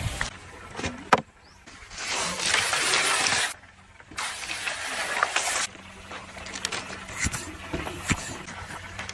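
Hot oil sizzling in a series of short clips that cut in and out abruptly, with a few sharp clicks between them.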